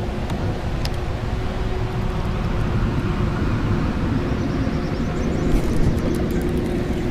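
Minn Kota electric trolling motor running with a steady hum over a low rumble, pushing a small fishing boat. A few light ticks come about five and a half seconds in.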